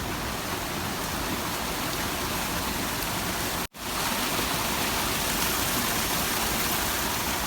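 Steady rush of fast-flowing river water and falls, broken once by a brief dropout to silence about halfway through.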